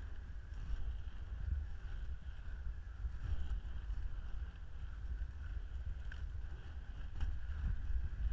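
Inline skate wheels rolling steadily over pavement and asphalt with a continuous whir and a faint high hum, a few light ticks from small bumps, and wind buffeting the body-mounted microphone as a gusty rumble.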